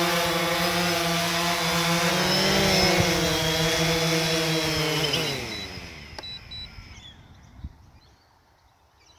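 DJI Phantom 3 quadcopter's four motors and propellers running steadily in a low hover, then, about five seconds in, spinning down as it lands, the pitch falling away over a second or two until they stop.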